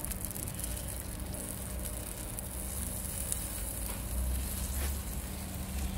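Octopus, shrimp and butterfish sizzling steadily on a mesh mat over a hot charcoal grill, a soft even hiss, with a low rumble swelling about four seconds in.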